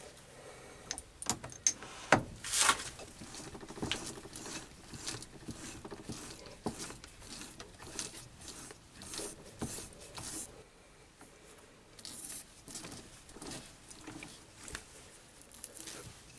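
Metal tooling handled on a stopped mini lathe: scattered clicks, knocks and light rattles, the loudest about two seconds in, as a tap in the tailstock drill chuck is set up and turned by hand into an acetal block.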